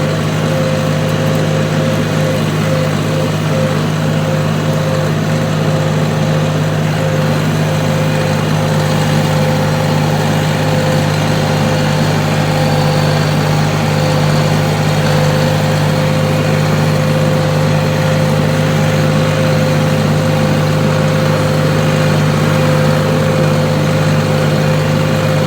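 Tractor engine running steadily at a constant speed, a low drone with a steady whine above it.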